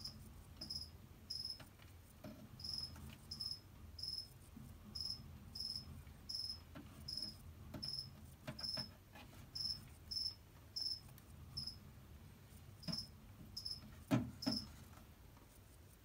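A cricket chirping: short, high chirps of one unchanging pitch, about one every half second to second with a few pauses, stopping shortly before the end. A few soft knocks come with it, the loudest one near the end.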